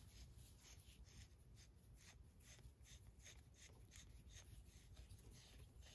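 Near silence with a few faint scratchy ticks a second: the steel acme threads of a test part rubbing against its mating threaded screw as it is turned by hand, running smoothly without binding.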